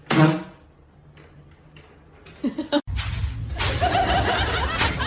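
A short loud vocal burst, then after a break, human laughter over a noisy background, in repeated bursts.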